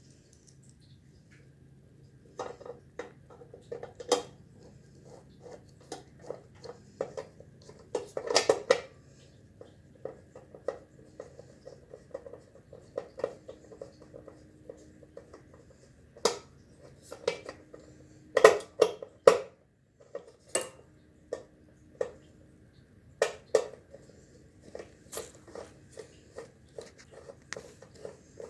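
Irregular clicks, taps and clinks of small hard objects being handled, with louder clattering knocks about 8 seconds in and again around 18 seconds, over a faint steady hum.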